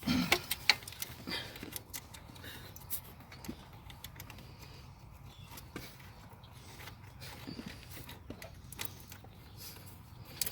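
Scattered light clicks and clinks of hand tools and small parts being handled, over a low steady hum; the loudest clicks come at the very start.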